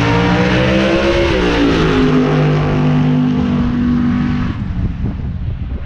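Vehicle engine running with a steady pitched hum. Its pitch climbs slightly, drops about a second and a half in and holds, then cuts away about four and a half seconds in, leaving wind buffeting the microphone.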